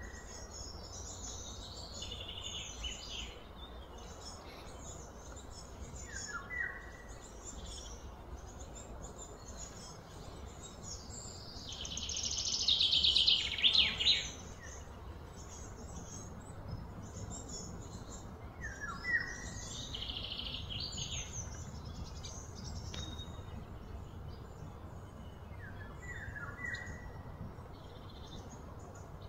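Birds chirping and calling, with a short falling call repeated four times. A louder, rapidly pulsed buzzing call comes about twelve seconds in and lasts about two seconds. Under it all runs a steady low outdoor rumble.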